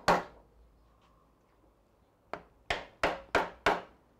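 A wooden block striking a drill press's steel chuck to knock it off the spindle taper: sharp knocks with a short ring, one right at the start, then after a pause of about two seconds, five more in quick succession at about three a second.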